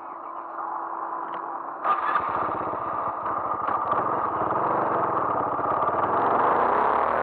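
Honda MSX125's single-cylinder engine starting about two seconds in, then running steadily as the bike moves off. Before the start there is a steady hum.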